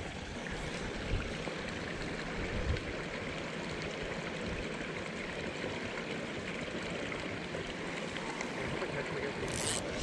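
Steady rushing noise of running water, even and unbroken, with a short hissing swish near the end.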